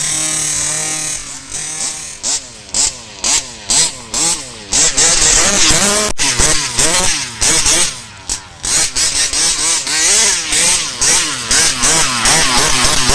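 Tuned 26 cc two-stroke petrol engine of a 1:5-scale RC buggy revving hard: a string of short throttle blips, then continuous revs swinging up and down as the throttle is worked.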